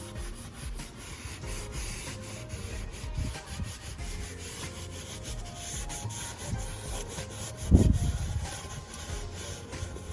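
Hand scrubbing and wiping to clean a part on a rotary screw air compressor: a continuous run of quick rubbing strokes, with one louder low thump about eight seconds in.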